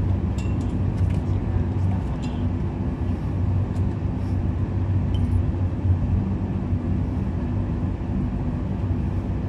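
A steady low mechanical hum, like a motor or engine running, with a few light clicks in the first couple of seconds.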